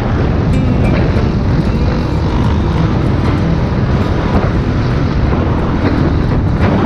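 Single-cylinder four-stroke dirt bike engine running at a steady cruising speed, heard loud and close from the filming rider's own bike, with a dense rumble of engine and wind.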